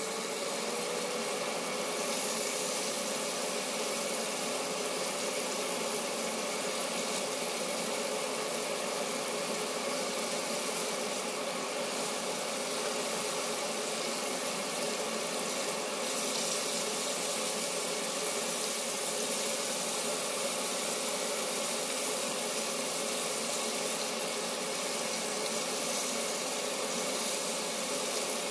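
Chicken pieces deep-frying in a pot of oil, a steady sizzle of bubbling oil. Under it runs a steady mechanical hum that rises slightly in pitch in the first second and then holds.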